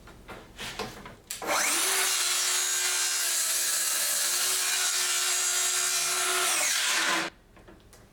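Festool HKC 55 cordless circular saw on its FSK guide rail spinning up and cutting through a board, running steadily for about five seconds, then winding down and stopping about seven seconds in. A few light clicks of the saw being handled come before it starts.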